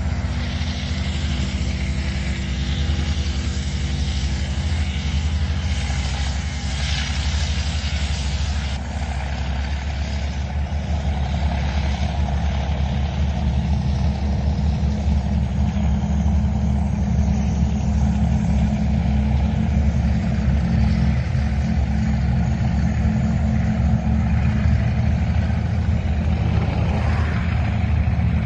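Heavy vehicle engine running steadily with a low drone, growing a little louder over the last several seconds.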